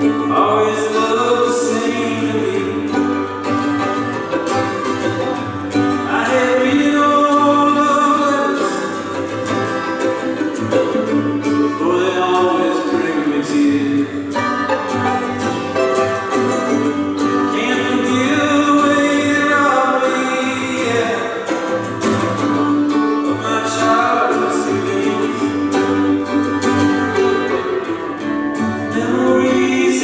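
Live acoustic folk music: a violin, bowed and then plucked, with a strummed acoustic guitar and singing.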